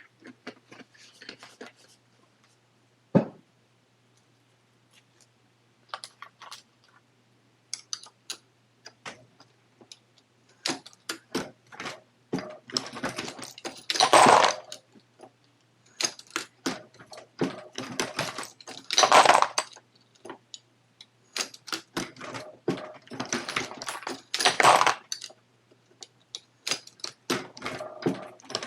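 Metallic clicking and clinking of brass cases and press parts as a Hornady Lock-N-Load AP progressive reloading press is worked. A longer burst of clattering comes about every five seconds, with one sharp knock about three seconds in, over a faint steady hum.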